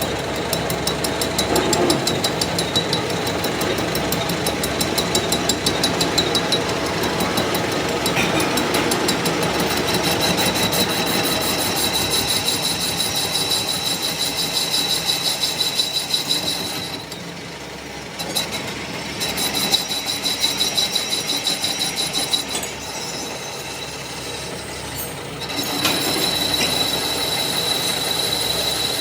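Workshop machinery running with a fast, even rattle and a steady high whine. The whine and the level drop out briefly twice in the second half.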